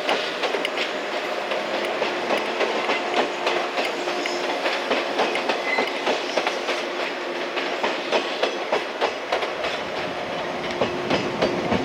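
Electric train running along the track, its wheels clacking rapidly and irregularly over rail joints, with a steady hum beneath.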